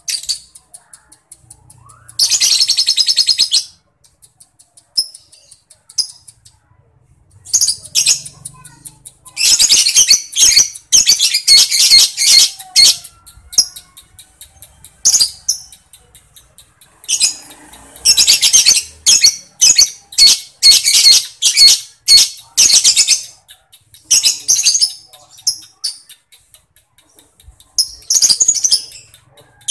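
Lovebird singing in long, very rapid rattling trills and ticking runs (the ngekek and ngetik of lovebird keepers). The bursts last one to several seconds, with short pauses between them; the longest comes about two thirds of the way in.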